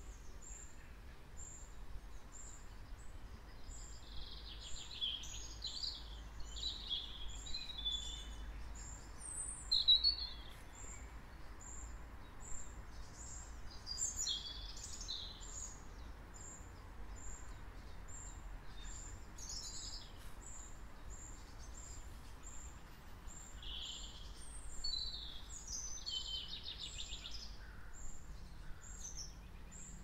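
Songbirds singing in short separate phrases, several in turn, with a thin high note repeated steadily throughout, over a low steady rumble.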